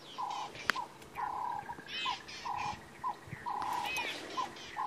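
Mixed birds calling in a bird party: a low, buzzy two-part call repeats about once a second, with higher arching chirps from other birds over it.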